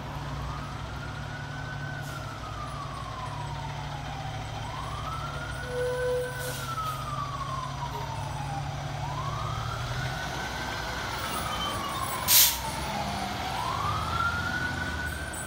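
Fire engine's Whelen electronic siren on a slow wail, rising and falling about every four to five seconds, over the steady rumble of the Smeal pumper's engine as it pulls out. A brief loud hiss about twelve seconds in.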